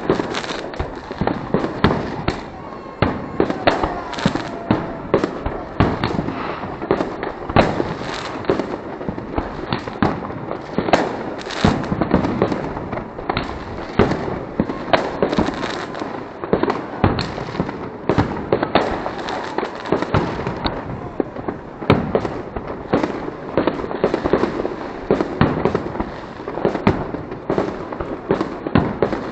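New Year's fireworks going off without a break: a dense run of bangs and cracks, several a second, some louder than others.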